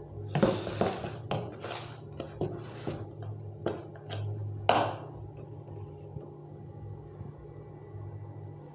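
A metal spoon stirring thick akara batter of blended beans and onion in a plastic bowl, scraping and knocking against the bowl for about five seconds, the loudest knock near the end of that run. A steady low hum lies under it throughout.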